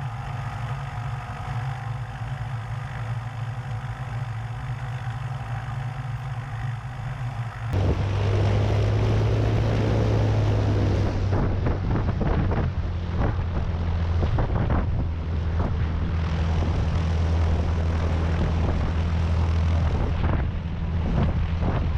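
Single-engine Cessna's piston engine and propeller running steadily. About eight seconds in the sound jumps louder and rougher, as the engine goes to takeoff power for a roll down the dirt strip.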